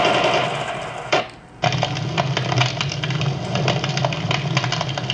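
Explosion-and-fire sound effect played back through a computer's speakers: a loud rush of noise cuts off about a second in, and after a brief drop gives way to dense fire crackling over a low rumble.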